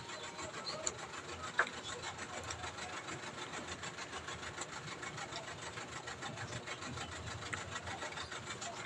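Steady low background hum like a motor running, with a short faint click about a second and a half in.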